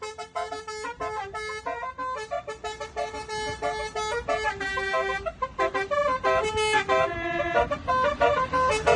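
MSK Romeo 2.0 twelve-trumpet musical air horn (telolet horn) playing a quick melody, its notes changing several times a second.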